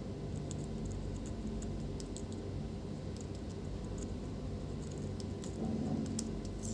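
Faint scattered ticks and light clicks from a tube of superglue being squeezed and worked at a plastic laptop hinge mount, over a steady low hum.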